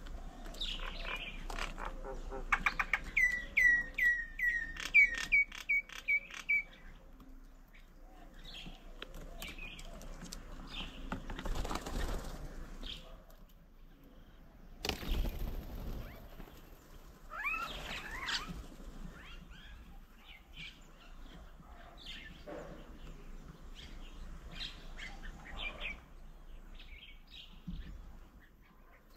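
Birds calling: a loud run of about a dozen quick repeated calls, roughly three a second, a few seconds in, then scattered chirps and calls.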